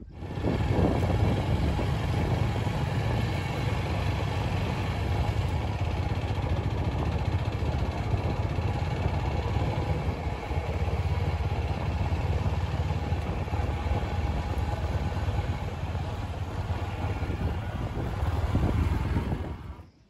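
An engine running steadily, a little louder near the end, then cutting off suddenly.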